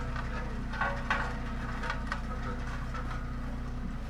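Sakai tandem road roller's diesel engine running with a steady low hum as the roller works a gravel road, with a few brief higher sounds about a second in and again near two seconds.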